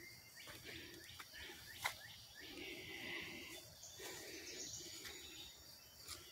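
Faint footsteps on a woodland dirt trail, roughly one a second, with light rustling and a few small clicks from the handheld camera.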